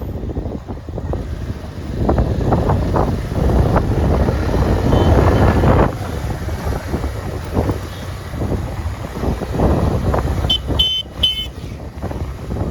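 Rumble of a motorbike ride, with wind buffeting the microphone and swelling and easing in gusts. Near the end a vehicle horn beeps three times in quick succession.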